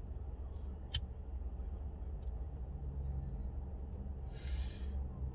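Low steady rumble inside a car's cabin, with a single sharp click about a second in and a short soft hiss near the end.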